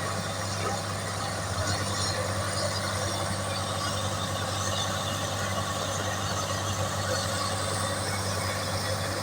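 Heavy construction machinery engine running steadily with a constant low hum.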